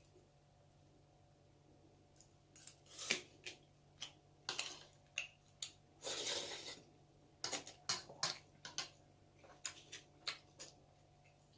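Eating sounds: a run of short, sharp clicks and taps of chopsticks and spoon on dishes, mixed with chewing. There is a longer noisy stretch about six seconds in, after a quiet first two seconds.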